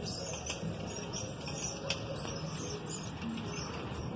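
Outdoor ambience with birds calling, including dove-like coos, and a single sharp click about two seconds in.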